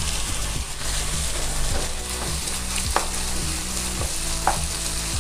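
Diced carrots and onions frying in oil in a kadai, sizzling steadily while a wooden spatula stirs them, with two short knocks of the spatula against the pan, about three seconds in and again near the end.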